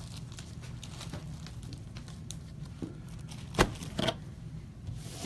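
Trading cards and plastic card holders being handled: light rustling and small clicks, with two sharper clicks about three and a half and four seconds in, over a steady low hum.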